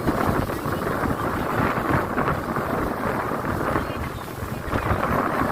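Wind buffeting the microphone aboard a fast-moving speedboat, over the rumble of the boat and its water. The noise swells and eases.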